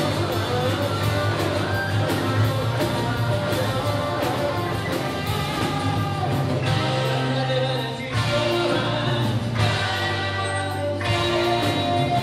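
Live pop-rock band playing a song: drums, acoustic and electric guitars, bass and keyboard, with a lead vocal.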